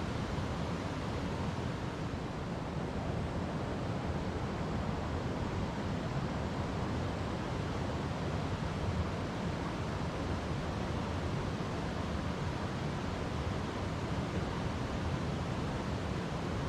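River water flowing over rocks: a steady, even rushing, heaviest in the low end.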